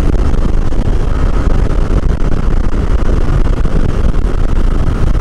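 Honda Click 150i scooter cruising at about 100 km/h, a loud, steady rush of wind and road noise over the engine, with a faint steady whine above it.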